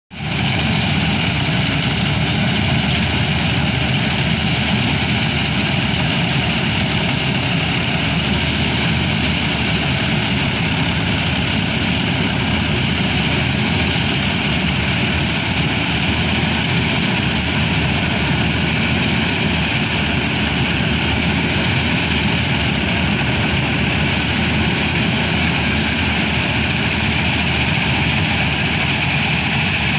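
John Deere 5055E three-cylinder turbo diesel running steadily under load, powering a tractor-mounted combine harvester as it cuts paddy in muddy ground.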